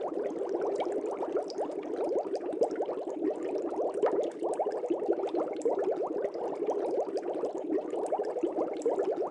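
Steady bubbling of air bubbles in water: a dense, unbroken stream of quick little rising blips.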